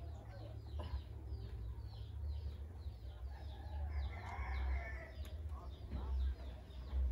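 Chickens clucking among a steady run of short, falling high bird chirps, about two or three a second, with a burst of clucking about four seconds in, over a low rumble.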